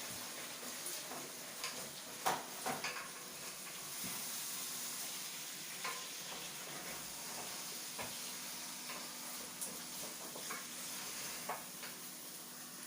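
Chicken pieces sizzling in a pot with onions, garlic and ginger while being stirred, the spoon knocking against the pot now and then.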